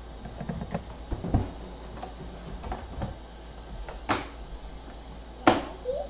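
Plastic clicks and knocks as a Bauer shop vac's lid and motor head are fitted back on and its latches and handle are worked, the sharpest knock near the end; the vacuum motor is not running.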